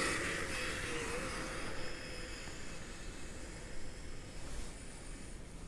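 Brushless electric motor of a Kyosho Blizzard RC snowcat running, a steady whine that wavers slightly about a second in and slowly fades, over a faint hiss.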